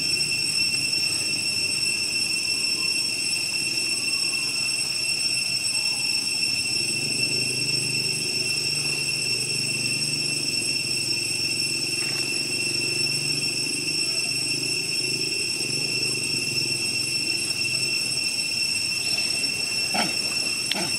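Steady high-pitched drone of forest insects, with a low rumble that swells in the middle and a couple of short clicks near the end.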